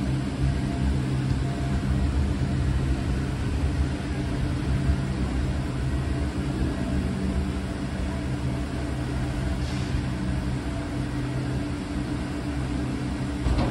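Canal lock gate machinery running with a steady low mechanical hum as the two steel lock gates swing slowly shut.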